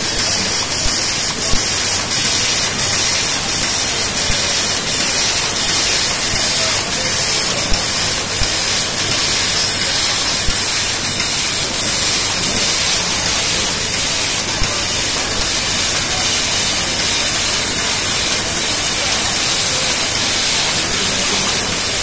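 750 W fiber laser cutting machine cutting sheet metal: a loud, steady hiss of the assist-gas jet blowing through the cutting nozzle as the head works.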